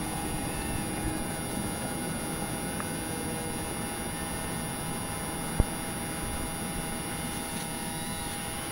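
A 5-inch FPV quadcopter's motors and propellers in flight: a steady hum with a thin high whine over a noisy rush. One sharp click stands out about five and a half seconds in.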